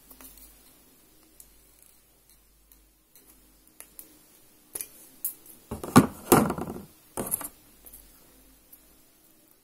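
Hand tool and copper wire clicking and scraping as the insulation is stripped from an electrical wire's conductor. Faint scattered ticks at first, then a louder run of scraping and knocks from about five to seven and a half seconds in.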